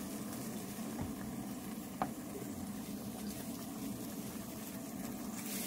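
Tofu frying in oil in a frying pan on a portable gas burner: a steady sizzle, with a sharp tap about two seconds in.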